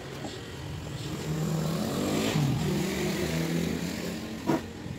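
An engine running, louder through the middle and briefly shifting in pitch, with a single sharp knock near the end.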